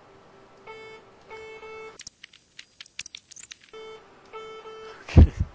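AUR robotic lamp arm's motors whining at a steady pitch in two short stretches as the arm moves, with a run of quick sharp clicks in between. A brief loud low thud comes near the end.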